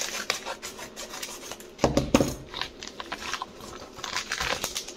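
Scissors snipping through a padded paper mailer envelope, then the envelope rustling and crinkling as it is pulled open, with a louder knock about two seconds in.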